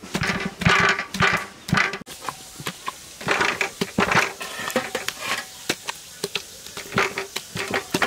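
Kitchen utensils clattering and scraping in irregular knocks, the handling sounds of food being worked in a pan or bowl.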